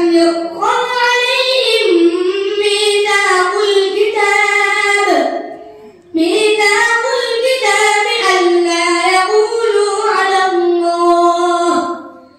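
A boy's voice reciting the Quran in melodic chant (tilawat) into a microphone: two long drawn-out phrases of held, ornamented notes, with a breath pause about six seconds in.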